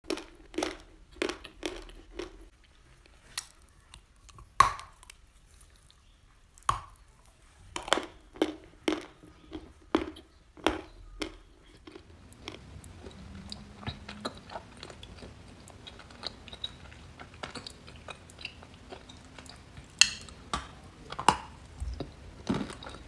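Close-up chewing of dry clay chunks, with sharp crunches as the clay is bitten and ground between the teeth. The crunches come in quick runs, then soften for several seconds in the middle, and turn loud again near the end.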